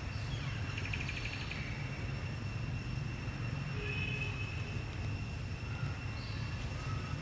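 Outdoor ambience: a steady low rumble under steady high-pitched buzzing tones, with a quick rattling trill about a second in and a few short faint chirps later.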